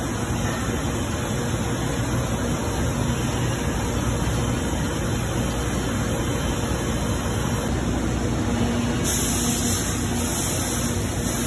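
Haas VF-2SS CNC vertical milling machine running with its coolant jet spraying inside the enclosure: a steady, even rush of spray and machine noise.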